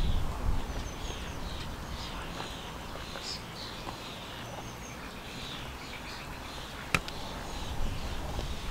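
Mute swan cygnets peeping, with short high calls repeated throughout. A single sharp click comes late on.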